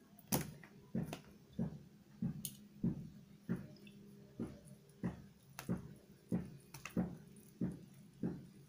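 Wet, smacking chewing of a mouthful of rice and curry close to the microphone, a steady rhythm of about one and a half chews a second.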